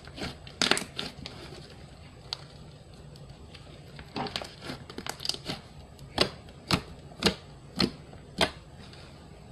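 Slime being worked by hand, crackling and clicking. Near the end come five sharp pops about half a second apart.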